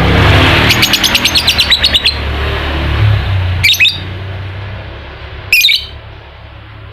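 Lovebird ngekek: a rapid chattering trill of about ten sharp notes a second lasting over a second, followed by two short shrill calls a couple of seconds apart.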